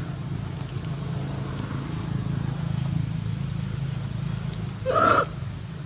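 A monkey gives one short, loud call about five seconds in, over a steady low hum and a thin, steady high-pitched whine.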